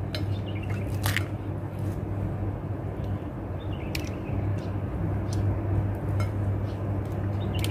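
Cooked crab being cracked and pulled apart by hand, with scattered sharp shell cracks and clicks, over a steady low hum.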